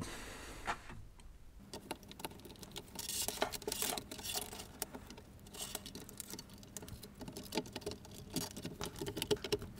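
Handling noises: a string of small irregular clicks, taps and rustles as a power supply unit and its cables are fitted by hand into a BBC Micro's plastic case.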